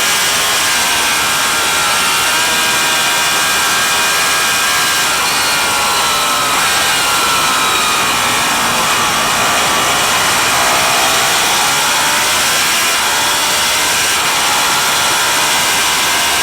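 Vintage racing motorcycle engine running hard at high revs under a heavy rushing noise. The pitch sags about eight seconds in and climbs again toward the end, as the revs drop and rise.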